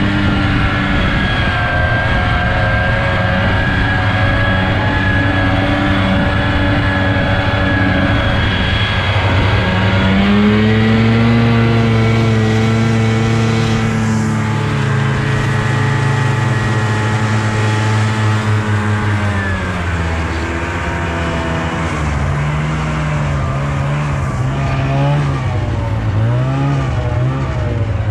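Snowmobile engine running at speed: steady at first, rising in pitch as the throttle opens about ten seconds in, holding, then dropping off around twenty seconds, with several short up-and-down throttle changes near the end as it slows.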